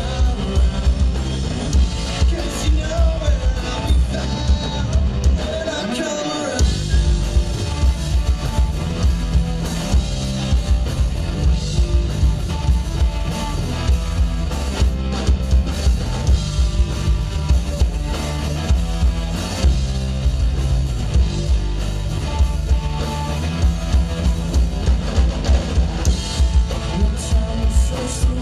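Live rock band playing loud: drum kit, electric bass and electric guitar driving a steady beat. About six seconds in the drums and bass break off for a moment, then come back in.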